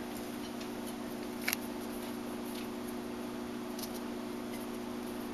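Faint clicks of chopsticks against a plastic container and plate as flour-coated chicken pieces are picked out, the clearest about a second and a half in, over a steady low hum.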